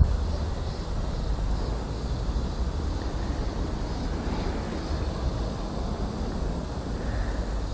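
Wind buffeting the microphone: a steady low rumble with no distinct events.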